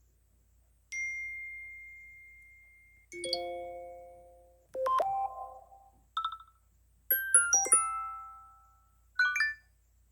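iPhone notification tones played one after another: six different short electronic chimes with a gap between each. They run from a single long ringing note, through a chord and a few quick notes, to a cluster of bright high notes and a brief trill.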